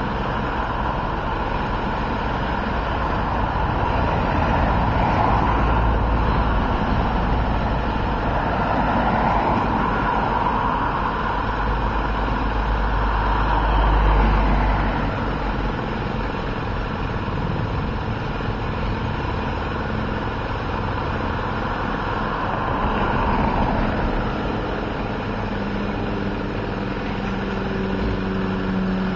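Street traffic: a steady rush of vehicles passing close by, swelling as cars go past about five, ten, fourteen and twenty-three seconds in. Near the end a steady low engine hum comes in, a vehicle idling nearby.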